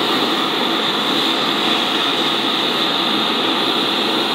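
Handheld propane torch with a soldering tip burning with a steady hiss, its flame heating a heavy copper cable lug to melt and flow solder.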